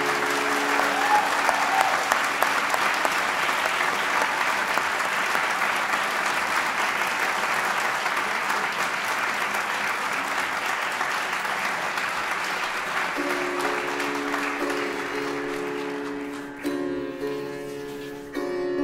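Audience applauding: steady clapping that fades away about three-quarters of the way through, while sitar music comes in with sustained notes.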